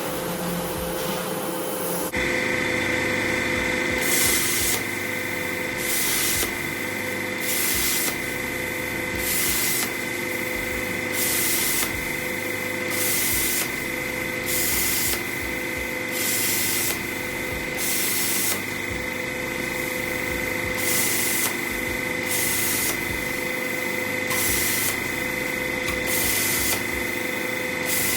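Air plasma cutter cutting expanded metal: the arc strikes about two seconds in and runs on as a steady high whine over a hiss that swells at regular intervals of just over a second.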